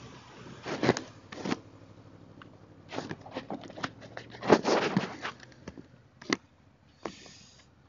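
Irregular rustling and crackling bursts of handling noise on a helmet-mounted camera microphone, loudest about a second in and again around four to five seconds in. The Yamaha Vmax's V4 engine runs faintly beneath.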